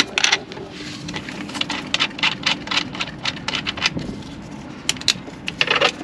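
Irregular clicks, clinks and knocks of hand work on truck parts, over a faint steady low hum.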